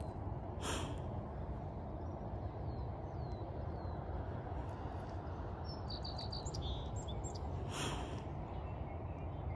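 Small birds chirping outdoors at dawn, with a quick run of chirps about six seconds in, over a steady low rumble. Two short bursts of hiss stand out, about a second in and near the end.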